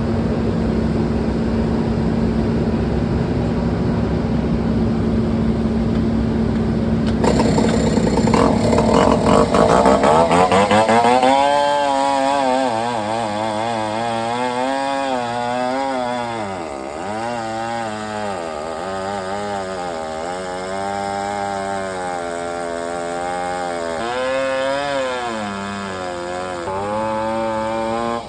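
Two-stroke chainsaw running. A steady engine hum for the first several seconds, then the saw at full throttle, its pitch dipping and recovering again and again as it cuts into logs.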